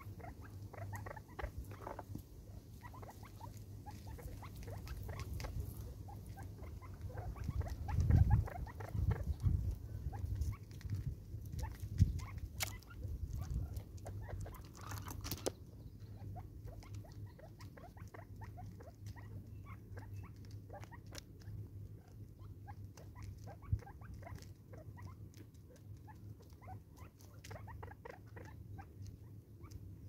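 Natal spurfowl pecking at seed and stepping on gravel: a steady patter of small irregular taps and ticks, with heavier low thumps about eight to ten seconds in and a few sharper single knocks.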